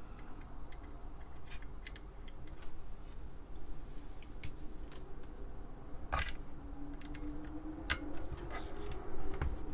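Scattered light clicks and taps of hands handling a plastic, acrylic and circuit-board panel assembly, with a sharper click about six seconds in and a few more near the end as a USB cable plug is pushed into the board's connector.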